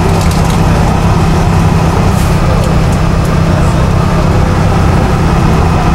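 Steady low drone of an intercity coach's engine and road noise, heard from inside the passenger cabin while it cruises along the highway.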